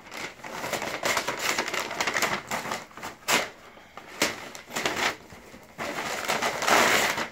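Paper packing material being pulled and torn out of a cardboard mailer: a busy rustling and crinkling with sharp rips about three and four seconds in, and a longer loud rustle near the end.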